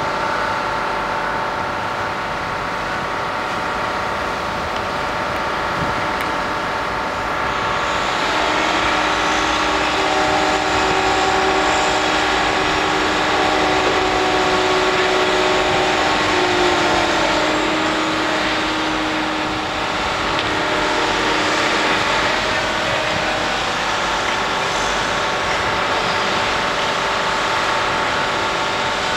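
Liebherr HS 875 crawler crane's diesel engine running under load, a steady hum of several tones. About eight seconds in it grows louder and hissier, and a steady whine joins it for about ten seconds.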